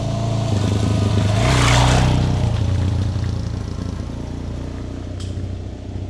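Suzuki DR-Z400S single-cylinder four-stroke dual-sport engine running steadily at low speed, with a brief louder rush of noise about two seconds in.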